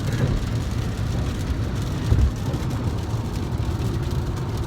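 Road noise inside a moving car's cabin on a wet day: a steady low rumble of engine and tyres, with a brief bump about two seconds in.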